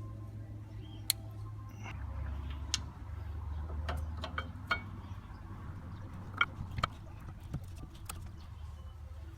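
Light clicks and metallic taps at irregular intervals, a handful of them sharper than the rest, over a low steady hum: hand tools and brake parts being handled.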